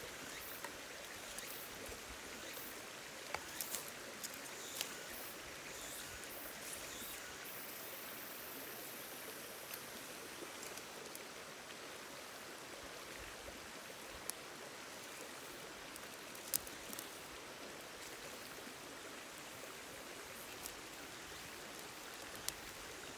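A river running, a steady rushing murmur of flowing water. A few sharp clicks sound over it, several about three to five seconds in and one near seventeen seconds.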